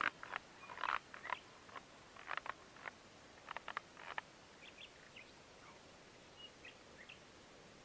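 An irregular run of short clicks and small splashy knocks through the first four seconds, then a few faint, short, high chirps.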